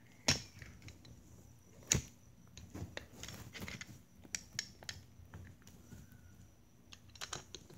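Metallic clacks and clicks of a semi-automatic pistol being handled. Two sharp clacks come about a third of a second and two seconds in, followed by a run of lighter clicks and rattles as the slide and an empty cartridge case are worked to set up a stovepipe malfunction.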